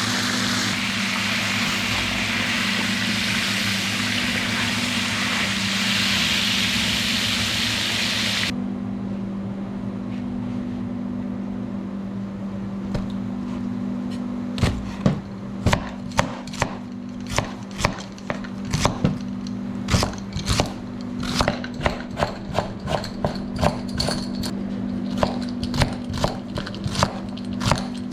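A steady loud hiss that cuts off abruptly about eight seconds in, then, from about halfway, irregular sharp knocks of a knife chopping on a wooden board, one to two a second, over a low steady hum.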